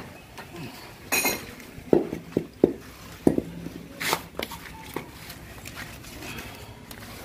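A string of irregular metal clanks and knocks as a motorcycle cylinder block is handled and set down on a concrete floor.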